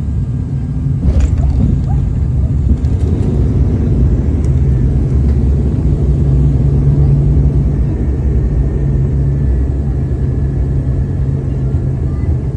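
Airliner cabin noise on the landing roll: engines and wheels rumbling loudly on the runway, with a thump about a second in and the roar swelling a few seconds later.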